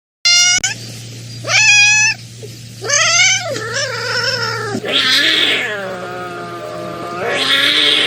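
A cat meowing over and over, a series of calls that bend in pitch. The later calls are longer and drawn out, like caterwauling.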